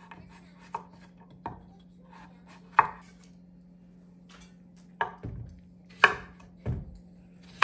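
Chef's knife chopping kabocha squash and then a sweet potato on a wooden cutting board: about eight separate, irregular knocks of the blade striking the board, with a pause of about two seconds in the middle.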